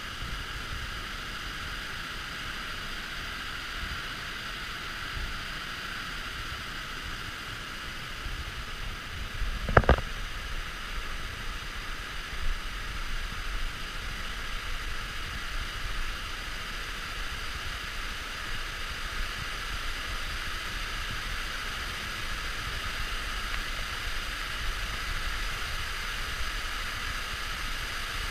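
Steady rush of a tall waterfall, Lower South Falls, heard from the trail behind the falling water. A single brief loud thump comes about ten seconds in.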